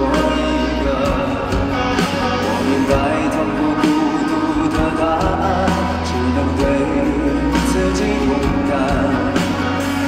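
A live pop ballad: a male singer's voice over a sustained band accompaniment with a steady bass line, sung into a handheld microphone on stage.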